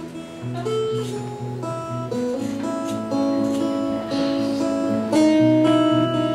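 Strummed acoustic guitar playing an instrumental passage between sung lines of a live folk-pop song.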